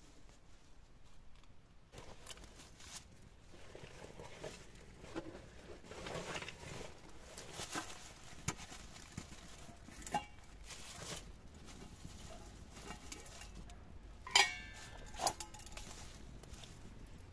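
Dry leaves rustling and small handling knocks as a metal cooking pot and a tin can are moved about. Near the end there are two sharp metallic clinks about a second apart, which are the loudest sounds.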